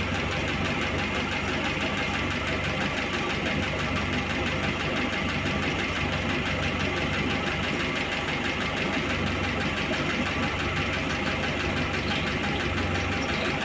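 VAZ-2101 engine idling cold, running steadily with a fast light clatter from the valve train: a worn, second-hand camshaft that the owner says needs replacing.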